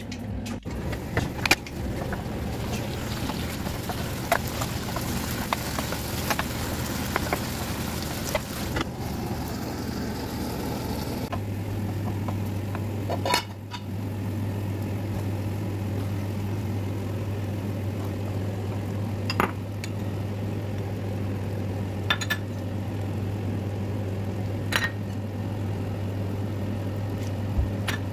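Chicken cooking in a frying pan: a hiss for about the first ten seconds, then a steady low hum with a few sharp clinks of a utensil against the pan.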